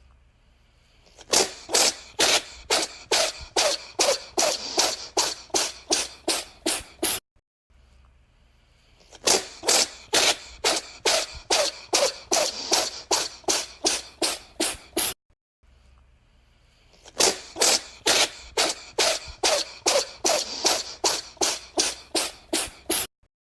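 A cat sneezing in rapid fits, short sharp sneezes about three a second. The same run of roughly six seconds is heard three times over, with a brief gap between each.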